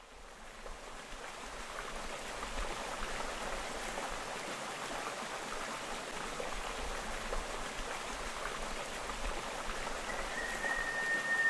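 Creek water running and trickling over rocks, a steady rushing and babbling that fades in at the start. Near the end a single steady high tone comes in over it.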